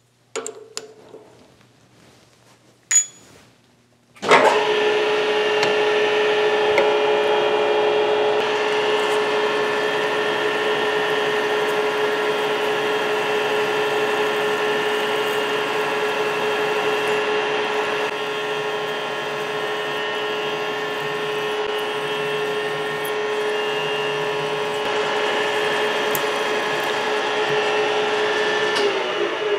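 A few light clicks and a knock, then about four seconds in a vertical milling machine's spindle starts and runs steadily, with a constant whine. It is drilling a hole through a round metal part with a twist drill held in its drill chuck.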